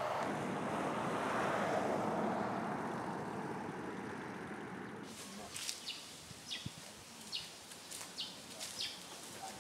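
Outdoor ambience with a steady rush of wind on the microphone that fades after about five seconds, giving way to a series of short, sharp, high ticks scattered through the rest.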